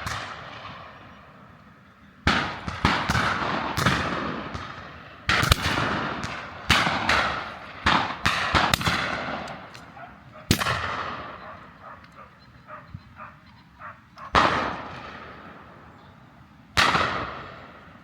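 Shotguns firing at driven pheasants: a rapid volley of about a dozen shots from several guns, some in quick pairs, then three spaced single shots, each with a long echoing tail.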